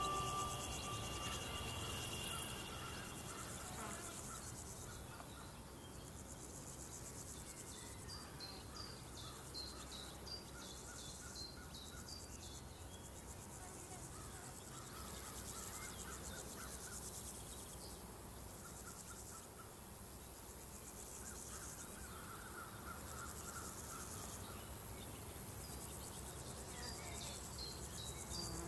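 Rural outdoor ambience of crickets and other insects chirping steadily, with a higher, louder insect drone joining about halfway and dropping out near the end. Short runs of quick chirps, likely birds, come twice. A held music note fades out in the first couple of seconds.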